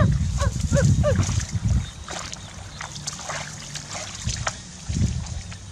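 Hands splashing and groping in shallow muddy water, with scattered small splashes and clicks. A quick run of short pitched calls sounds over low thuds in the first couple of seconds.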